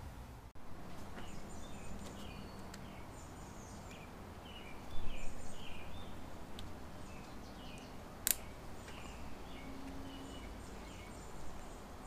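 Hands fitting a wire jumper plug into a motorcycle's wiring harness connector: light handling noise, loudest about five seconds in, and one sharp click a little after eight seconds. Small birds chirp faintly in the background.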